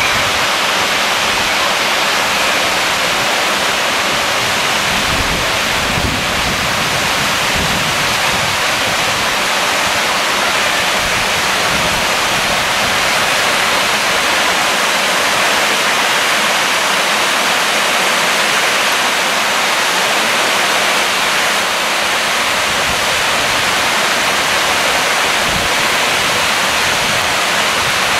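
Storm floodwater rushing in a steady, loud torrent over paving and down steps.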